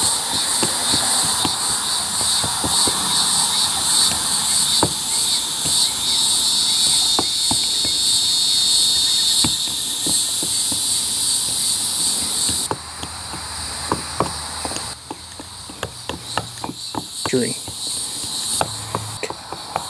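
A steady, high-pitched insect chorus, loud for about the first thirteen seconds and then much fainter. Scattered light clicks and taps come from a hot plastic-welding tip being pressed and worked along the melted seam of a plastic kayak hull.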